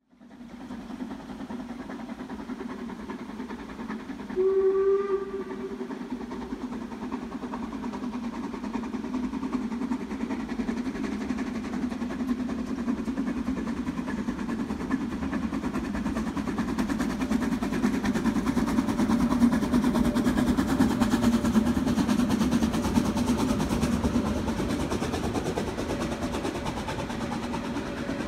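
Steam locomotive 99 7247-2, a 1956 LKM-built metre-gauge 2-10-2T tank engine of the Harz narrow-gauge railway, working hard up the Brocken grade. It gives one short whistle blast about four and a half seconds in. Its running grows louder as it passes, and then the carriages roll by.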